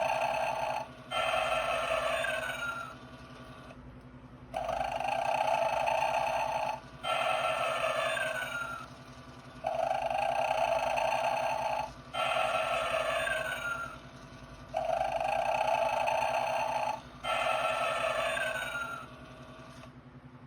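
1996 Gemmy animated Snoring Santa figure playing its snore: a rasping snore in, then a breath out with a whistle that falls in pitch, repeating about every five seconds. A steady low hum runs underneath.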